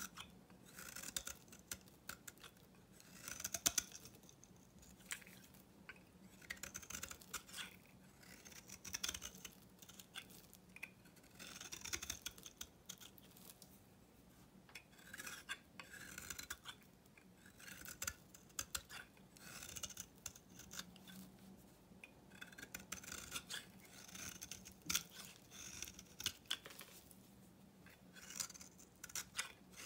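Utility-knife blade shaving thin curls off the face of an old bar of Svoboda factory soap: repeated crisp, crackly scraping strokes, one every second or two, with sharp little clicks as the shavings break away.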